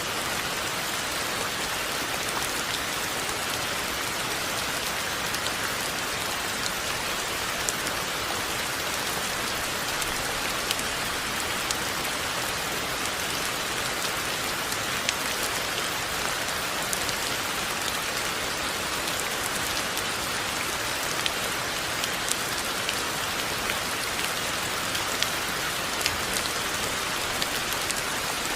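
Steady rain falling, a dense even hiss with scattered sharper drip ticks of drops striking a surface.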